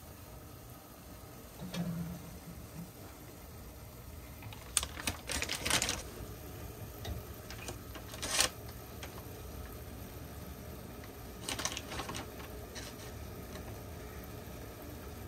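Skewered fish cakes deep-frying in a small pot of hot oil on a gas burner: a steady low bubbling with three bursts of rapid crackling clicks, the loudest about halfway through.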